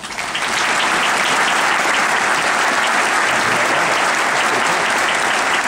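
Large audience applauding, breaking out suddenly and holding at a steady, dense level throughout.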